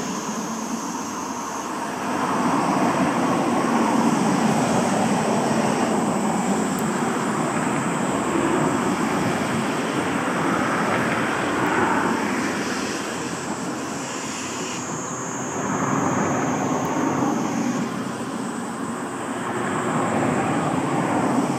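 Class C11 steam tank locomotive pulling out, its steam exhaust and hiss a loud, continuous rush that swells and eases every few seconds.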